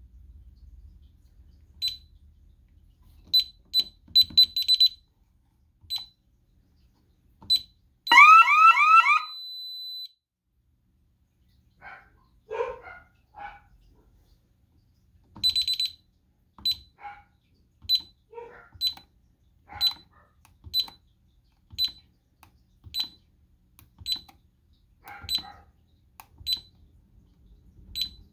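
DSC alarm keypad beeping a single high note as its keys are pressed. About eight seconds in, the siren gives about four quick rising whoops in a second while the keypad holds a steady tone for two seconds. From about sixteen seconds the keypad beeps steadily, about once a second.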